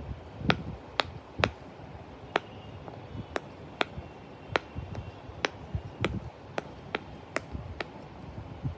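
A series of sharp clicks or taps at irregular spacing, roughly one or two a second, several with a dull low knock under them.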